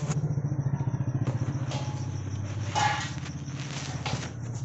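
Hero Duet scooter's single-cylinder engine idling with a steady low pulsing. A few short rushes of noise sound over it, the loudest about three seconds in.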